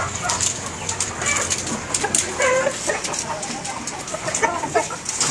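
Caged young fighting-cock chickens eating: scattered sharp taps of beaks pecking at feed, with a few short clucks.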